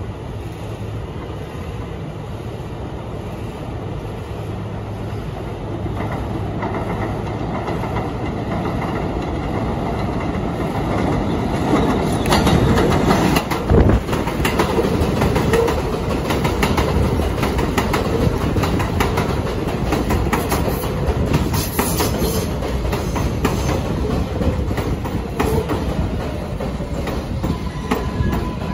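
R188 New York City Subway 7 train arriving on an elevated steel line. Its rumble builds from about six seconds in, and from about twelve seconds the cars run close past, wheels clacking over the rail joints as the train pulls into the station.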